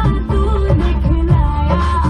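Bollywood film-song music playing loudly, with a melody over a steady beat of deep drum hits.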